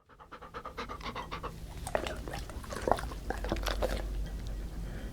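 Golden retriever panting quickly and evenly, about six breaths a second. From about two seconds in come scattered wet clicks and smacks from its mouth.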